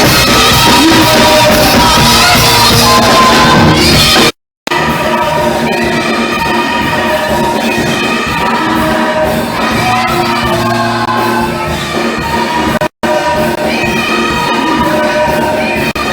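Choir singing with instrumental accompaniment, loudest in the first four seconds. The sound cuts out completely for a moment about four seconds in and again later.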